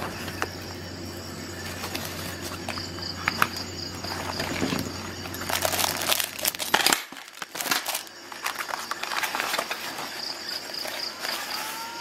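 Rustling and crinkling as a foil-wrapped first-aid packet and the nylon kit pouch are handled, with scattered small clicks and knocks. A low steady hum underneath stops abruptly about seven seconds in.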